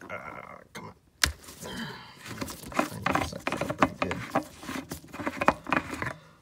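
Handling noise from a gloved hand rubbing and bumping the phone. There is a sharp click about a second in, then a busy run of irregular clicks, scrapes and rustles.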